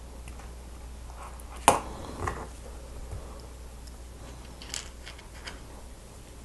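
Plastic Lego Technic pieces clicking as they are handled and pressed together, with one sharp snap about a second and a half in and a few lighter clicks after it.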